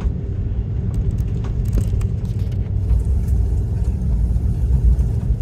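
Cabin rumble of an Airbus A330-200 on its takeoff roll: the Rolls-Royce Trent 700 engines at takeoff power and the landing gear rolling over the runway, a loud steady low rumble growing slightly louder. A few light knocks and rattles come about one to two seconds in.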